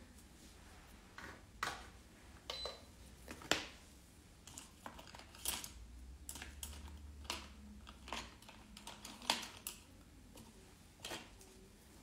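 Faint, scattered light clicks and taps of small manicure tools and product containers being handled on a tabletop, about a dozen at uneven intervals.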